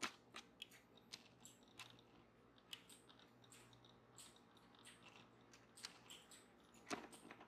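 Yarn loops being lifted over the pegs of a circle knitting loom to form a hat cuff: faint, irregular clicks and rustles, with one slightly louder click near the end.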